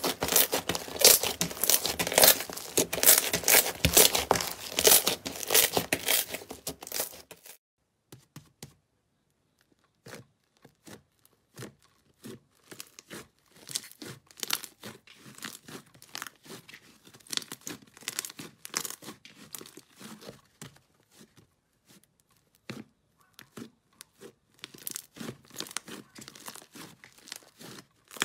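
Hands squeezing and kneading slime, with dense crackling and popping of trapped air for about seven seconds. After a short pause, a second slime is pressed and stretched, giving sparser, quieter crackles and pops.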